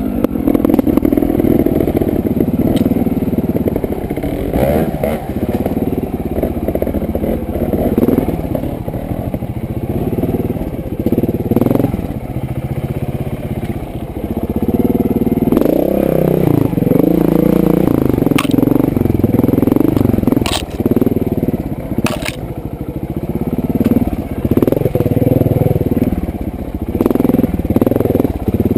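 Trials motorcycle engine revving up and down in short bursts as the bike picks its way over a rocky trail, with a few sharp knocks along the way.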